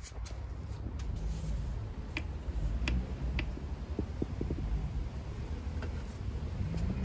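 Low rumble with a scatter of light clicks and taps as a hand handles the mobility scooter's tiller column.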